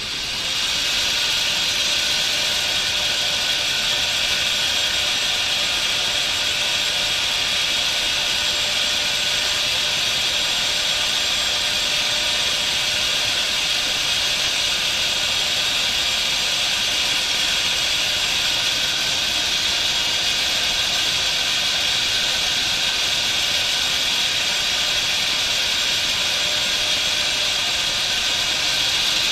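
Electric drill running at a steady speed, spinning a rubber one-piece rear main seal on a taped hole-saw mandrel while sandpaper is held against it to sand the seal's outside diameter down. The drill comes up to speed in the first second and then holds steady.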